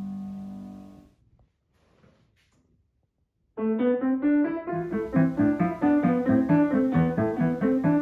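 Piano: a held final chord fading away over about a second, a pause of near silence, then a new lively piece starting about three and a half seconds in with quick, evenly struck notes.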